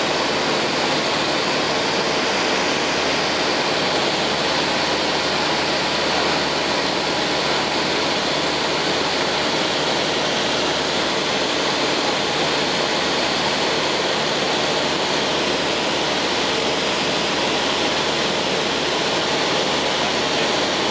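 Steady cabin noise of a Cessna 152 in flight: the Lycoming O-235 four-cylinder engine and propeller running evenly under the rush of air past the airframe, with a faint steady drone running through it.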